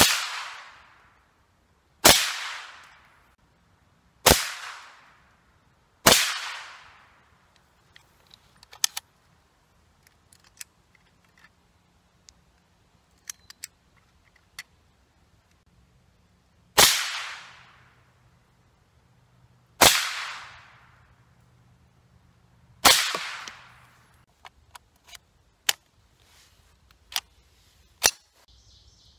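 A rifle firing seven single shots, each ringing out for about a second. Four come about two seconds apart. After a pause of about ten seconds filled with light clicks of handling, three more come about three seconds apart, followed by more clicking.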